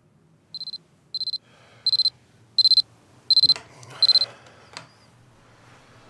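Electronic alarm clock beeping: six bursts of rapid high-pitched beeps about 0.7 s apart, each louder than the last, stopping about four seconds in. A rustle and a sharp click follow.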